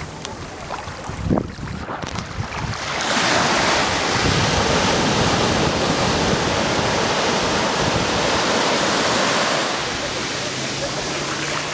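Sea surf breaking and washing up the shore, a steady rush that swells loudest from about three seconds in and eases near the end, with wind buffeting the microphone. A brief thump about a second in.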